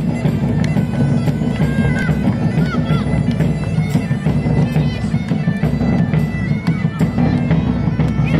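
Live folk band music: a reedy melody over a steady drone, with regular drum beats.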